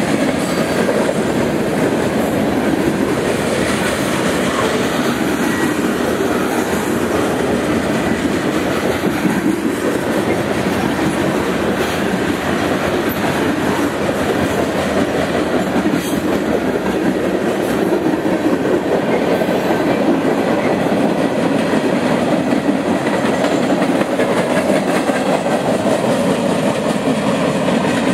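Cars of a mixed freight train rolling past steadily, steel wheels rumbling and clicking on the rails.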